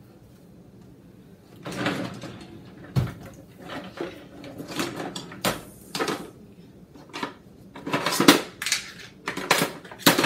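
Kitchen cabinet drawers sliding and knocking shut and open, with a heavy knock about three seconds in, then plastic and silicone cooking utensils clattering and rattling as they are handled in a wooden drawer. The first couple of seconds are quiet before the clatter starts.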